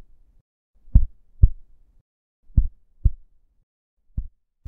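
Heartbeat sound effect: low double thumps, lub-dub, repeating about every second and a half.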